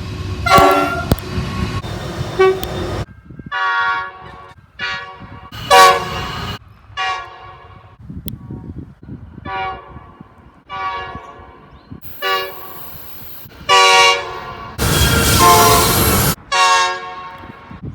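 Train horns sounding a series of short multi-note blasts, about a dozen of them, the longest and loudest about three-quarters of the way through. A low rumble of the trains runs between the blasts, with a brief high hiss near the middle.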